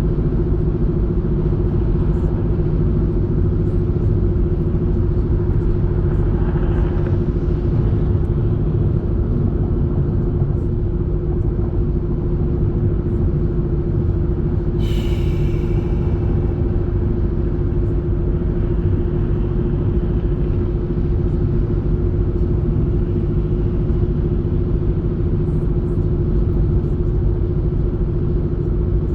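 Car interior road noise while driving on a highway: a steady low rumble of tyres and engine with a constant hum, and one brief high-pitched sound about halfway through.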